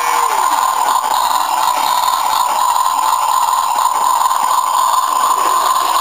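Electronic engine-running sound effect from a Dickie Toys MAN garbage truck's built-in sound module, played steadily through its small tinny speaker. A short falling tone dies away in the first half second.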